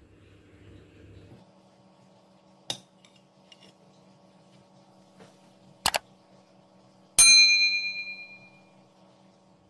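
Sound effects of a subscribe-button animation: a single mouse click, a quick double click, then a bright bell ding that rings out and fades over about a second and a half.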